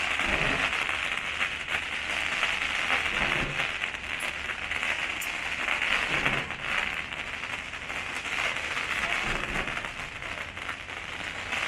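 Fireworks display: a continuous dense crackling from many rockets and bursting stars, with a low thump about every three seconds as new volleys go up.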